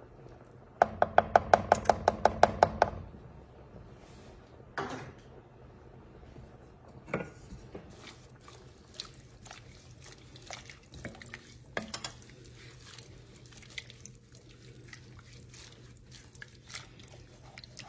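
Wooden spoon stirring soup in an enamelled Dutch oven, with occasional knocks of the spoon against the pot and soft sloshing of liquid. About a second in comes a quick, even run of about a dozen taps lasting two seconds, the loudest part.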